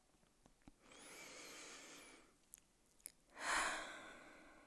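A woman's deep breath taken into a close microphone: a long, soft inhale, two faint clicks, then a louder exhale like a sigh that trails off.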